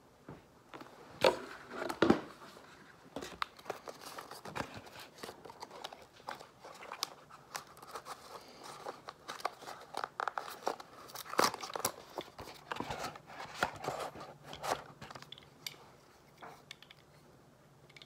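Hands unpacking a boxed wrench multi-tool: irregular clicks, rustles and small knocks from the box, its packaging and the tool, with two louder knocks about one and two seconds in.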